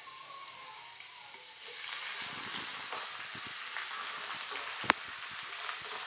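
Chopped onions sizzling in hot mustard oil in a non-stick frying pan, the sizzle swelling about a second and a half in as they are stirred with a spatula. Small scrapes of the spatula against the pan run through it, with one sharp tap of the utensil on the pan about five seconds in.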